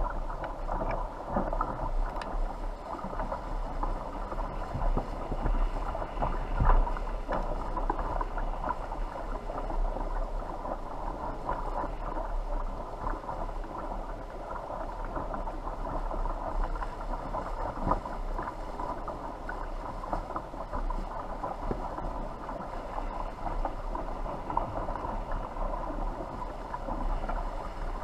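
Steady rush of wind and water heard from a camera mounted at the top of a small sailboat's mast, with scattered small knocks and one louder knock about seven seconds in.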